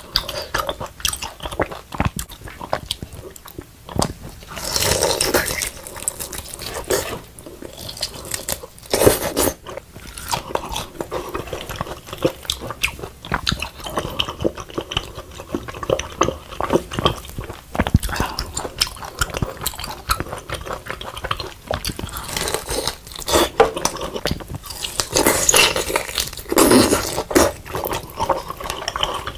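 Chewing and biting grilled daechang (beef large intestine): a steady run of crunchy crackles and wet mouth sounds, with several louder stretches of chewing.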